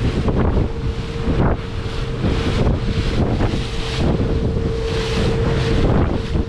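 Wind buffeting the microphone on a Stabicraft 2050 Supercab aluminium boat running through choppy water, with spray rushing along the hull in repeated swells. Under it, the outboard engine holds a steady hum.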